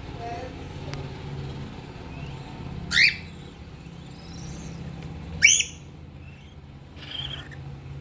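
Cockatiel chicks calling: two short, shrill chirps that sweep upward in pitch, about three seconds and five and a half seconds in, and a fainter call near the end.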